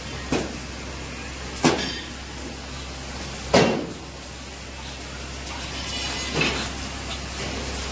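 Three sharp metallic knocks in the first four seconds, the third the loudest with a short ring, from the handle of a concrete hollow-block making machine being worked, heard over a phone video call, with a low steady hum beneath.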